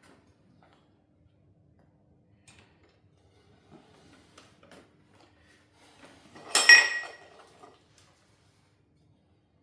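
Small taps and clicks of metal parts and tools during engine disassembly, then about six and a half seconds in a single loud metallic clatter with a brief ringing, as a metal part or tool is set down hard on a metal surface.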